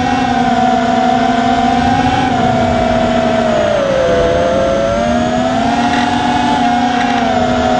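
FPV quadcopter's T-Motor F60 III brushless motors whining in flight, the pitch wavering with the throttle, dipping about four seconds in and climbing back.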